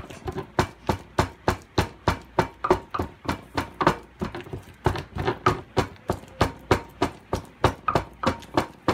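Wooden pestle pounding boiled cocoyam in a small wooden mortar, steady strokes about three a second: the hot cocoyam being mashed smooth into achu paste.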